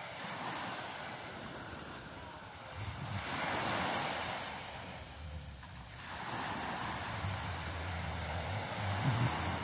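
Small waves washing over the shallows and onto the beach, the surf swelling twice, about three seconds in and again about seven seconds in, with wind rumbling on the microphone.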